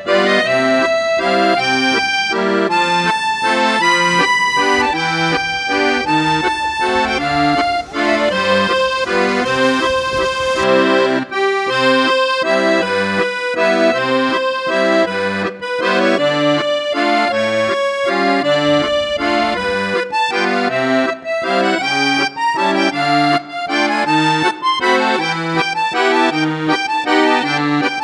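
Background music led by an accordion, a melody over a steady bass beat.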